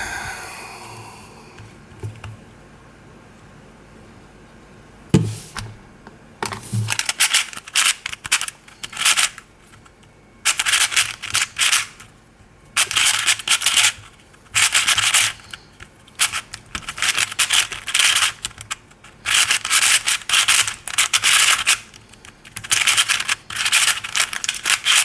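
Unlubricated Fangshi ShuangRen 3x3 speedcube being turned fast in a timed solve: bursts of scratchy, rasping layer turns with short pauses between them, starting about six seconds in, after a single soft thump. The cube is loud because it has no lube.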